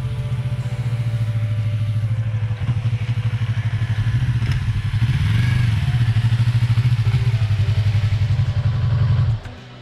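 2020 Yamaha MT-03's parallel-twin engine running at low speed, getting louder as the motorcycle comes closer, with a brief rise and fall in revs midway. The engine sound cuts off suddenly near the end.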